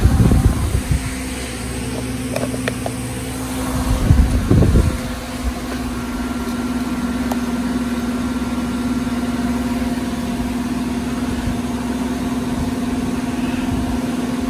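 Steady hum of running machinery in a machine shop, with short bursts of knocks and handling noise near the start and about four seconds in.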